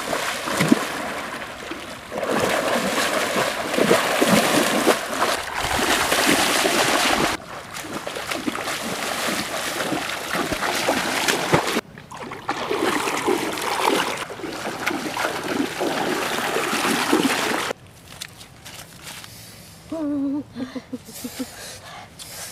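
Water splashing and sloshing as someone runs through knee-deep flood water, in several segments that start and stop abruptly; near the end it gives way to quieter sounds.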